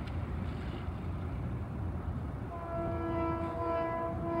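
A train horn sounding a very loud, steady chord, starting about halfway in, over the low rumble of a train on the tracks.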